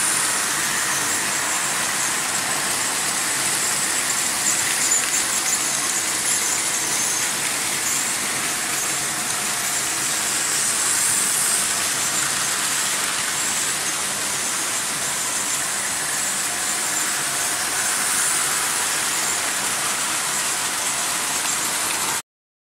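Several Märklin H0 model trains running at once on metal M-track: a steady running noise of wheels on the rails and the locomotives' motors, which cuts off suddenly near the end.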